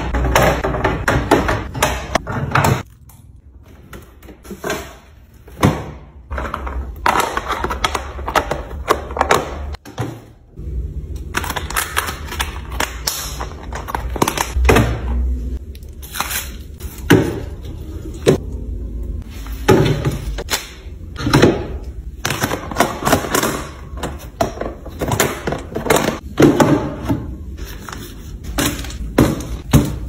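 Plastic bottles, bags and bowls being handled and set down on refrigerator shelves and door racks: an irregular string of knocks, clicks and rustles, with a quieter lull about three seconds in.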